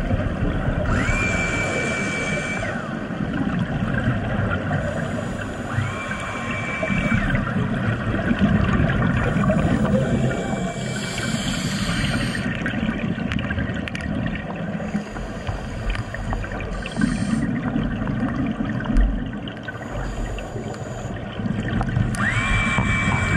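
Scuba diver breathing through a regulator, heard underwater: every four or five seconds a hissing inhale, often carrying a thin held tone that rises at its start, and between the inhales exhaled bubbles rumble and gurgle.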